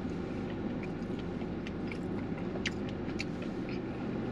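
A man chewing a bite of jalapeño cheddar sausage, with small scattered mouth clicks, over a steady low background rumble.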